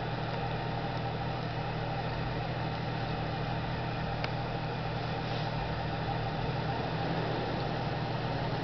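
Jeep Cherokee XJ engine running steadily as it climbs a snow-covered hill trail.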